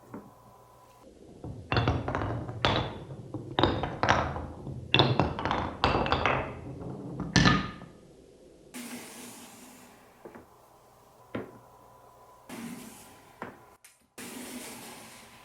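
Marbles rolling and dropping through a wooden Cuboro marble run: a quick string of clacks and knocks on the wooden blocks, some with a short ring, for about six seconds. After that the knocks thin out to a few scattered ones.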